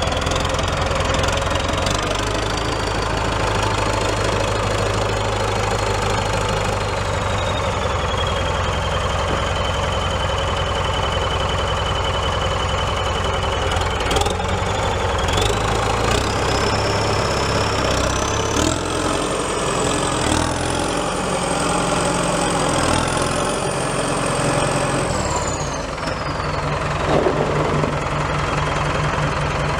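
New Holland 7740 tractor's four-cylinder turbo diesel engine running steadily. A high whine climbs in pitch about two-thirds of the way through and falls away near the end as the engine note changes. A few short knocks come in the middle.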